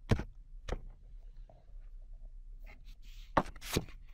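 A few light knocks and clicks from a paper air filter with a rubber rim being handled and pressed into a plastic airbox: two in the first second, and a close pair near the end with a faint rustle around them.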